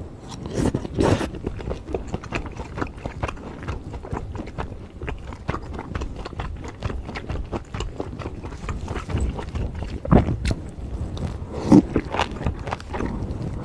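Close-miked chewing and biting of beef bulgogi with bean sprouts and wide glass noodles: a steady run of small wet mouth clicks, with louder bites about a second in, about ten seconds in and near the end.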